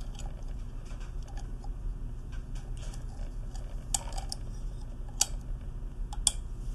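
Light clicks and taps of the check spring retainer being pressed down and twisted into the body of a pressure vacuum breaker, with about three sharper clicks in the second half, over a steady low hum.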